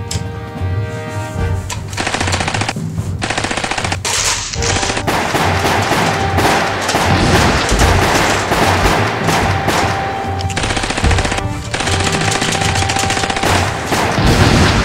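Rapid automatic gunfire sound effects over background music. The firing starts about two seconds in and runs in long bursts with a few short pauses.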